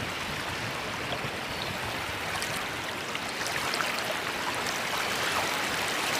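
Steady rush of moving water, with a few faint light ticks in the second half.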